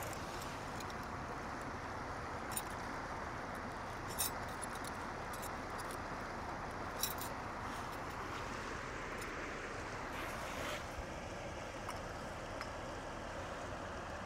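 Steady rushing of a shallow river flowing over rocks, with a few light metal clinks from stirring the cooking pot.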